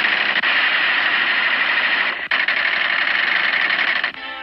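Thompson submachine guns firing long automatic bursts, a fast continuous rattle. It breaks off briefly about two seconds in and again near the end.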